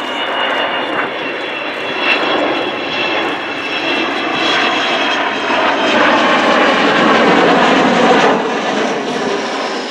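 Avro Vulcan XH558's four Olympus turbojets passing in a display fly-past, a dense jet roar with a faint high whine. It swells to its loudest about two-thirds of the way through, then begins to fade near the end.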